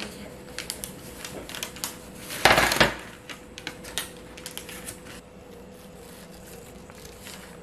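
Parchment paper crinkling and a metal baking sheet clicking and scraping on a countertop as a toddler handles baked cookies, with one louder, longer scrape about two and a half seconds in.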